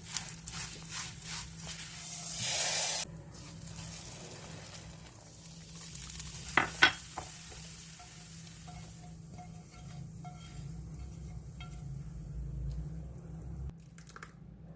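Food sizzling in hot oil in a pot while a spoon stirs it, scraping in short strokes. A loud hiss lasts about a second near the start, and a couple of sharp knocks of the utensil on the pot come about halfway through.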